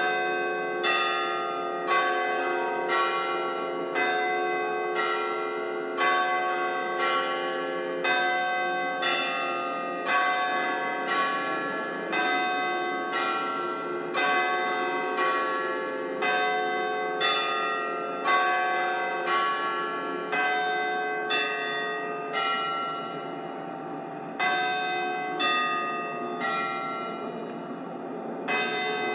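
Church bells pealing: several bells of different pitch are struck one after another, about two strokes a second, and each rings on under the next.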